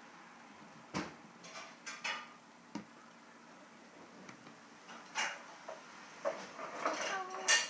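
Small plastic toy figurines being handled, with a few scattered light knocks and clicks as they are picked up and set down.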